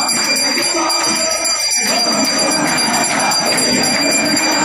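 Temple bells ringing continuously, several high tones held steady, over a mix of many voices.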